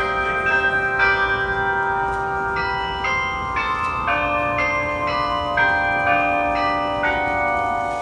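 Delacorte Musical Clock's bells playing a tune, a new note struck about every half second, each ringing on under the next.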